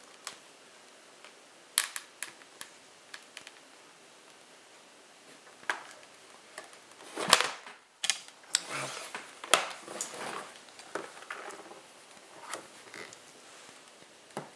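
Sharp plastic clicks and snaps as the snap-together plastic case of a ViewSonic G Tablet is pried at by hand. A single loud knock comes about seven seconds in as the tablet is laid on the table, followed by a few seconds of rubbing and handling noise with more clicks.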